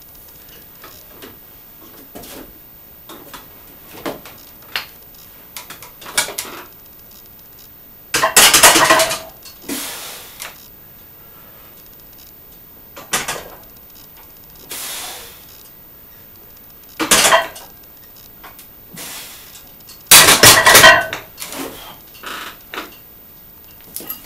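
Barbell and iron weight plates clanking and clattering: scattered small clicks and knocks, with two loud bouts of metal clatter, about eight and twenty seconds in.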